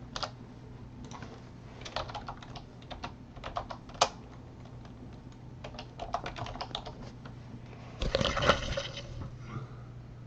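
Typing on a computer keyboard in irregular runs of key clicks, with a louder rustling burst of about a second near the end, over a steady low hum.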